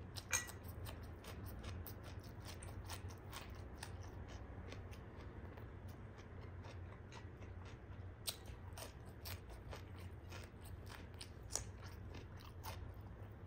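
Close-up mouth sounds of a person biting and chewing crisp raw cucumber sticks: an irregular stream of wet crunches and clicks, with a few sharper, louder bites (one right at the start, others past the middle and near the end).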